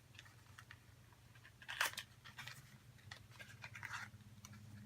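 Faint clicks and crinkles of a small cosmetic sample package being handled, the loudest about two seconds in, over a low steady hum.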